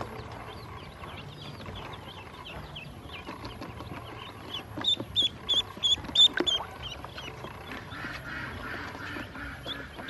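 Duckling peeping: a run of about six loud, high peeps at about four a second near the middle, with fainter high chirps around them. A brief knock follows the peeps.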